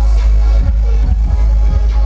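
Electronic dance music from a live DJ set, played very loud over a concert sound system, with a heavy, pounding bass beat.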